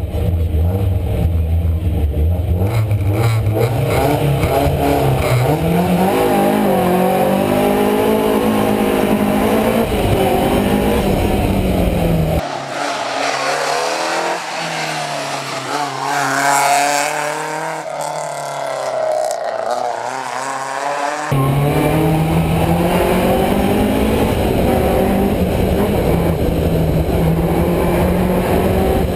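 BMW M3 E30 rally car's four-cylinder engine at race pace, heard inside the car, revving up and down through the gears. About twelve seconds in, it switches to the same car heard from the roadside, the engine rising in pitch as it accelerates out of a bend. About nine seconds later it switches back to the in-car sound.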